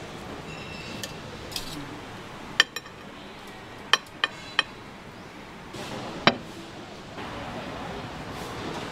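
Kitchen utensils and dishes clinking: about six sharp, ringing clinks, three of them in quick succession around the middle, over a steady background noise.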